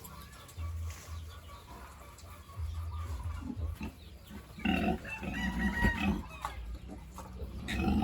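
Farm animals calling: low grunting, with a louder high-pitched call about halfway through.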